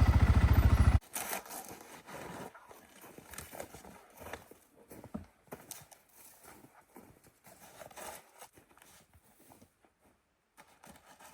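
An idling engine cuts off abruptly about a second in. Irregular crunching steps and scrapes on icy, snowy ground follow.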